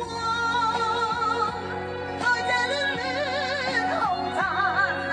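Closing bars of a pop ballad: a melody line with wide vibrato over sustained chords, moving to higher notes about halfway through.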